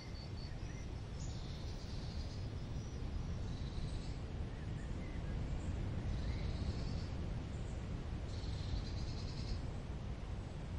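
Small birds chirping in short, high trilled phrases, about four times, with a few fainter chirps between them, over a steady low outdoor rumble.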